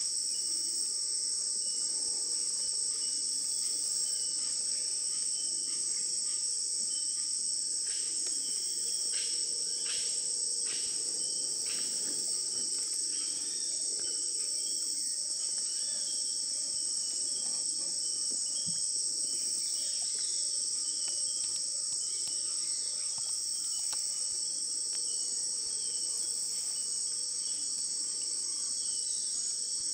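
Steady, high-pitched chorus of rainforest insects, a continuous shrill drone. A few short, faint calls cut through it about ten seconds in.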